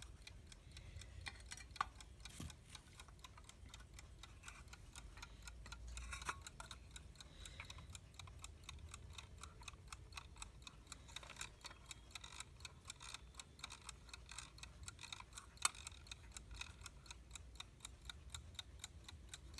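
US Time Waterbury alarm clock movement running, a faint, rapid, steady ticking, with a few louder single clicks from handling.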